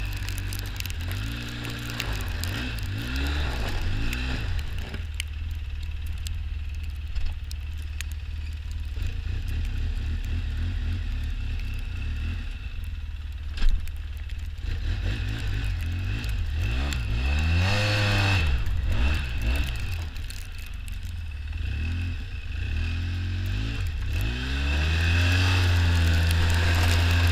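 Small off-road vehicle engine driving through snow, its pitch rising and falling several times as the throttle is worked, over a steady high whine. A single sharp knock comes about halfway through, and the engine runs louder near the end.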